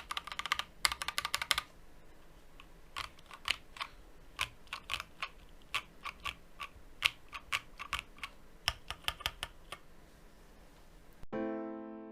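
Typing on an Akko MOD007 gasket-mount mechanical keyboard with MMD Ice Cream full-POM switches: a quick run of keystrokes, then slower, separate key presses. Soft piano music comes in near the end.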